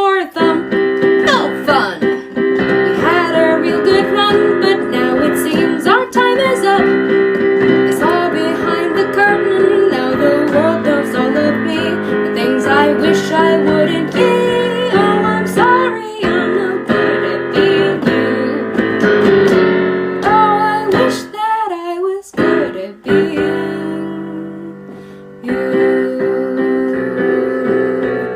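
A song: strummed acoustic guitar with a singing voice over it, thinning out briefly about three quarters of the way through.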